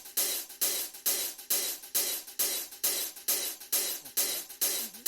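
Music with a steady percussion beat: a bright, cymbal-like hit about twice a second.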